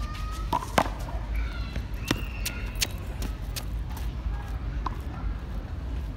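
A rubber handball being struck, with one loud smack about a second in, then several lighter taps and knocks over the next few seconds. A steady low rumble runs underneath.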